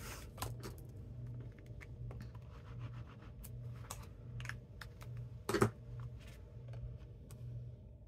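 Cardstock pieces handled and set down on a craft mat: scattered light taps, clicks and paper scrapes, with one louder tap about five and a half seconds in.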